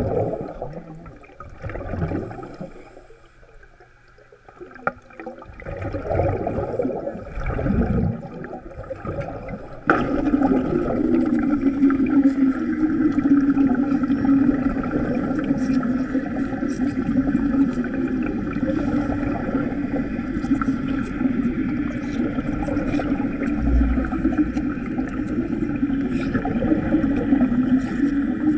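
Underwater wet arc welding heard through a diver's helmet: uneven swells of bubbling and gurgling for the first ten seconds or so, then a steady bubbling hiss with scattered faint crackles that holds to the end.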